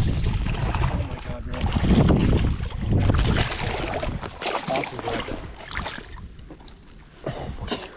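Wind buffeting the microphone, loudest over the first few seconds, while a hooked largemouth bass splashes at the surface. Later come scuffing, crunching steps on snow-covered shore rocks as the fish is reached at the water's edge.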